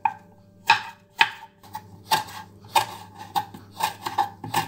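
Knife chopping a lemongrass stalk on a wooden cutting board, sharp knocks about twice a second, each with a short ring.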